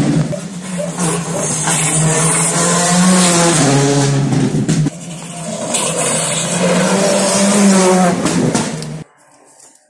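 Rally car engine running at high revs as the car comes along the stage and passes at speed, its pitch climbing and falling with gear changes and a sudden drop about five seconds in. The sound cuts off abruptly shortly before the end.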